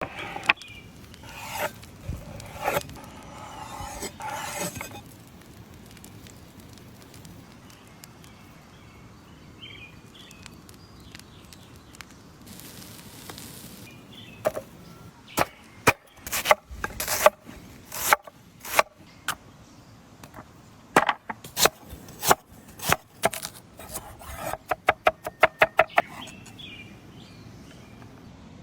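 Knife chopping on a wooden cutting board, the kind of sound made when cutting cabbage for coleslaw. It starts with softer rubbing and scraping, then single chops at irregular gaps, and near the end a quick even run of about eight chops a second.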